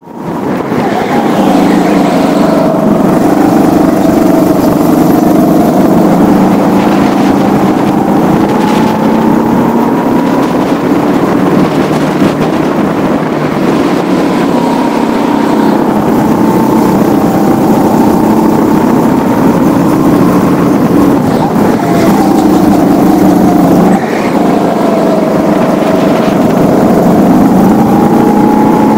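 200cc four-stroke kart engine running hard through a lap, its pitch rising and falling again and again as the throttle opens and closes through the corners.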